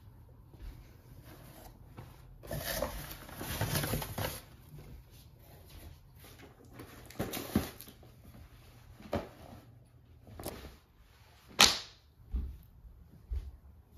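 Clothes and other items being handled and taken out of a cardboard box: a few seconds of rustling, then a series of separate knocks and clicks, the sharpest about two-thirds of the way through. A couple of soft low thumps come near the end.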